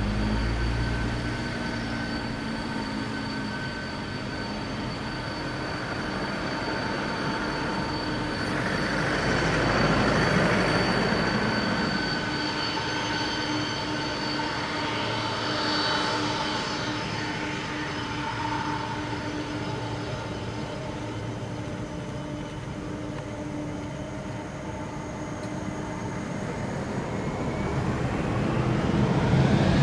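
Boeing 747-400 freighter's four turbofan engines whining at taxi power, several steady whine tones over a rushing noise that swells and fades as the jet turns past. Near the end the whine climbs in pitch and the sound grows louder as thrust is added.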